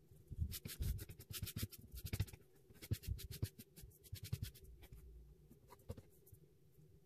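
Eraser rubbing back and forth on a sketchbook page in quick scratchy strokes, with light knocks against the table, slowing and stopping about six seconds in.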